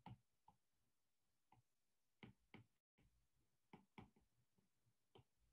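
Near silence with a few faint, irregular ticks of a stylus tapping on a tablet's glass screen while handwriting.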